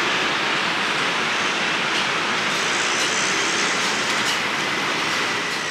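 Steady rushing background noise of a street-food stall, even and unbroken, with a few faint clicks in the middle.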